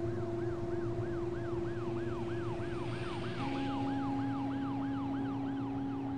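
Emergency-vehicle siren in a fast yelp, its pitch sweeping up and down about three times a second. Under it are low, held music notes that shift to a new chord about halfway through.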